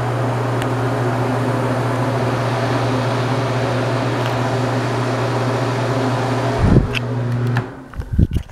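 NuTone bathroom exhaust fan running with a steady hum and rush of air. It cuts off abruptly near the end, as it is switched off, with a thump just before and a few knocks just after.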